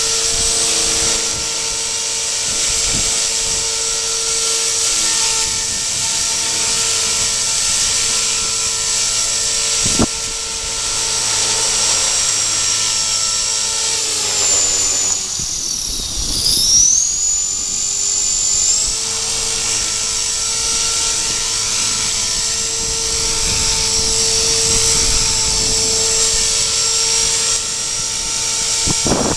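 Radio-controlled model helicopter flying, its motor and rotors giving a steady high-pitched whine. About halfway through the pitch dips sharply and then climbs back to where it was.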